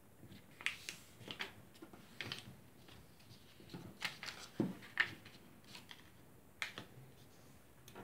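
A sheet of thin paper being folded by hand: irregular crisp crackles and rustles as it is turned and its folds are creased flat.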